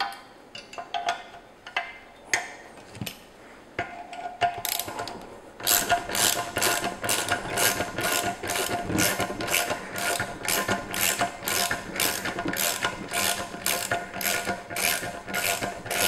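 A ratcheting wrench clicks in steady back-and-forth strokes, a little over two a second, from about six seconds in. It is turning the centre bolt of a valve spring compressor to press down a valve spring on a BMW S52 cylinder head. Before that come a few scattered metal clinks and taps as the wrench is set on the bolt.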